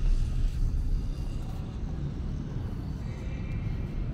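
Outdoor city ambience: a low, uneven rumble, louder in the first second and easing after, with a faint higher tone a little past three seconds in.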